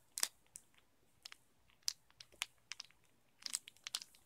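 Plastic shrink-wrap crackling in short, irregular crinkles as fingers pick at it to get the package open, with a denser cluster near the end.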